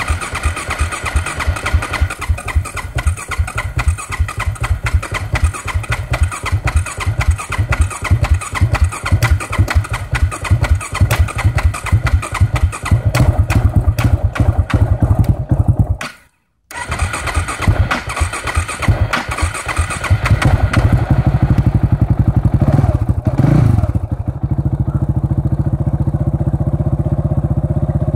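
Electric starter cranking the KTM 690 Duke's single-cylinder engine on and on, with a brief stop about halfway and more cranking after it: a hard hot start after the bike sat in the sun. The engine catches about twenty seconds in, revs once and settles into a steady idle.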